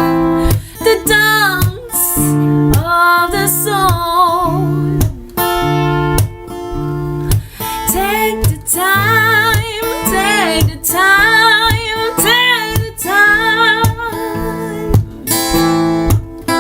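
Music: a singing voice with wavering held notes over acoustic guitar.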